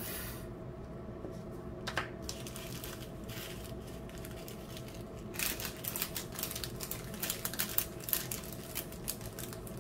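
Small plastic zip-lock bags of rhinestones being handled, crinkling and rustling, with a single click about two seconds in and busier crinkling through the second half.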